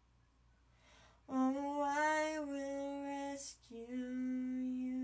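Unaccompanied female voice singing, starting about a second in. The first held note wavers slightly in pitch; after a short break comes a lower, steady held note.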